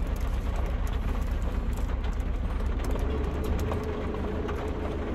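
Low, steady throb of an idling vehicle engine heard inside the cab, with an even hiss of rain on the vehicle and scattered small clicks and crinkles of a plastic bread bag. A steady hum joins about three seconds in.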